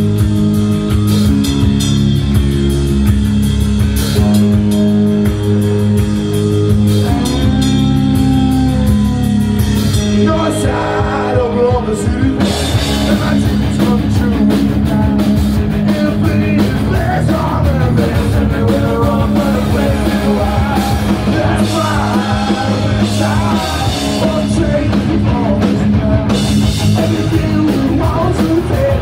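Punk rock band playing live, loud and steady, with electric guitar, drum kit and singing.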